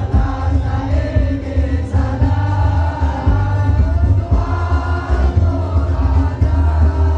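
A man singing an Arabic sholawat (devotional song in praise of the Prophet) into a microphone with a gambus band, with bass and a steady drum beat; other voices join in.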